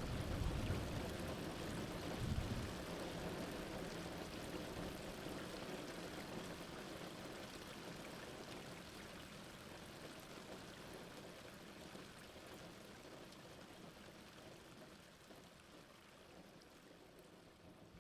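Heavy rain falling steadily, with a low rumble of thunder about two seconds in, fading out gradually.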